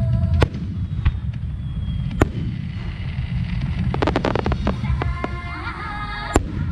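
Aerial firework shells bursting overhead: single sharp bangs about half a second in, at one second, just after two seconds and past six seconds, with a quick run of crackling pops around four seconds, over a steady low rumble.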